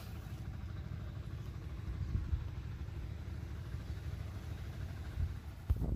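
Small boat engine running at a steady low rumble.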